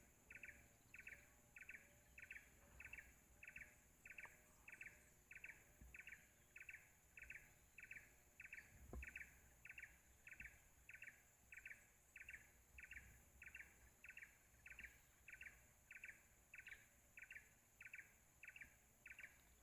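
Faint forest sound: a short chirping call repeated evenly about one and a half times a second, over a steady high-pitched insect hum.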